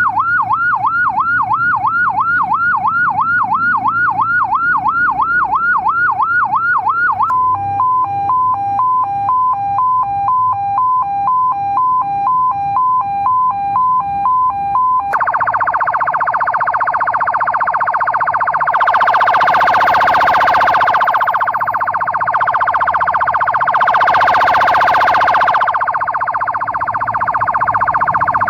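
CJB 200-watt electronic siren switching through its tones: a fast yelp sweeping up and down about four times a second, then about seven seconds in a two-tone hi-lo alternating about twice a second, and from about fifteen seconds a rapid warbling tone. Twice in the second half a louder rushing swell rises over the warble.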